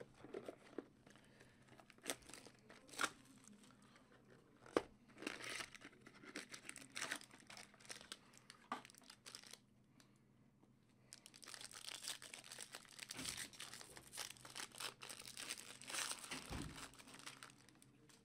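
Trading card pack wrappers being torn open and crinkled, with the cards shuffled and handled. Scattered crackles and taps come first, then a longer stretch of steady crinkling in the second half.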